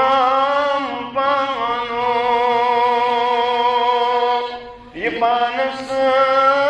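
A man's solo voice chanting a devotional nazm unaccompanied, holding long drawn-out notes with a slight waver. He breaks briefly about a second in and again a little before five seconds.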